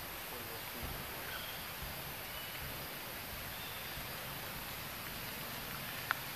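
Steady hiss of outdoor forest ambience with a few faint, short high chirps in the first few seconds and a single sharp click about six seconds in.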